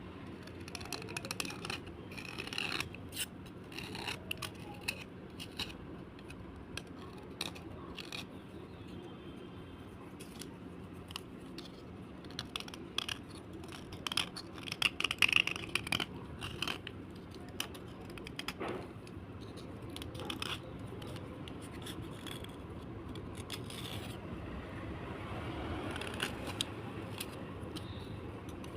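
Pieces of slate being scraped and crunched: a run of crisp clicks and crackles, densest and loudest around the middle.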